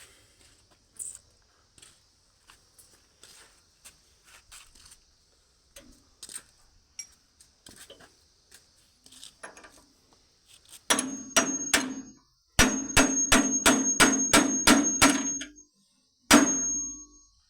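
Small hammer striking metal parts of a chaff cutter to knock a part loose for removal: scattered light taps and clinks, then about ten seconds in a quick run of ringing metal-on-metal blows, roughly four a second, and one last ringing blow near the end.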